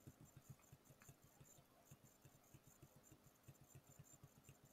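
Near silence: faint room tone, with a faint low, rapid pulsing.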